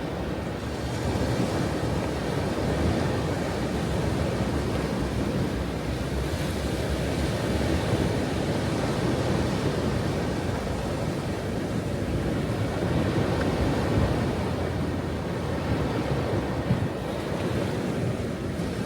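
Ocean waves breaking and washing on a shore, a continuous surf rush that swells and eases, with some wind on the microphone.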